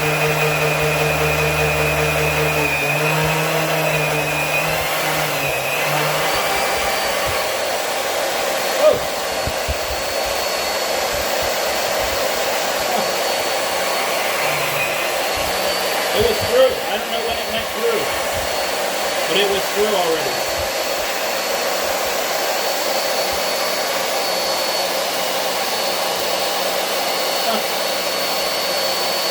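Vevor 1550 W magnetic drill's motor running loud and steady under load as its cutter bores a 1-inch hole through steel plate. Its whine shifts in pitch a few seconds in, and there are a few short knocks in the middle.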